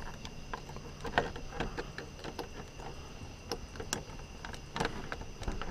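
Scattered light clicks and small knocks of hard plastic parts being handled, as an interior light's bulb and lens are worked on, with a few sharper ticks near the end.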